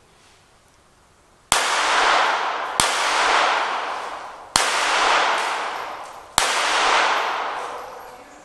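Four pistol shots, spaced about one and a half to two seconds apart and starting about a second and a half in, each followed by a long echo under the range's metal roof.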